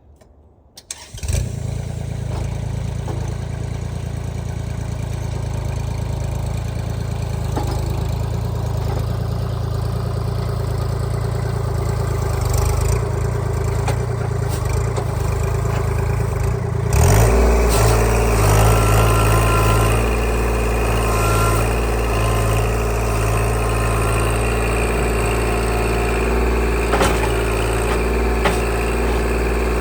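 An engine starts about a second in and then runs steadily. About 17 seconds in its sound changes abruptly, turning a little louder and deeper.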